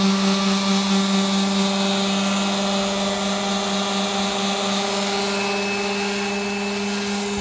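Power sander running steadily with a constant buzzing hum over a hiss, sanding down the van's painted body ahead of repainting.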